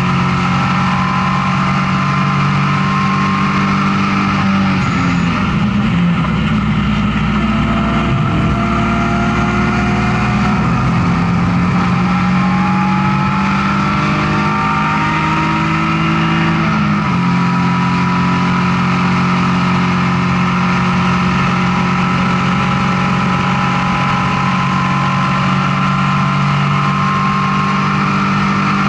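BMW E36 M3 straight-six race engine running hard under racing load, heard from inside the stripped cabin. Its pitch dips about four seconds in, then climbs slowly for some ten seconds. It changes abruptly about seventeen seconds in and then holds steady.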